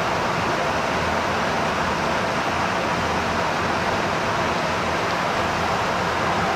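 Steady in-flight noise of a tanker aircraft's engines and slipstream, heard from inside the boom operator's compartment: an even rushing roar that does not change.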